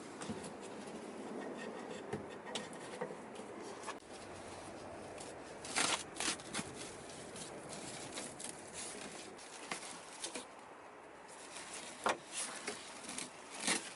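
Scraping, rustling and scattered knocks of hands and tools working in the mud-caked interior of a car, with a few sharper knocks about six seconds in and again near the end.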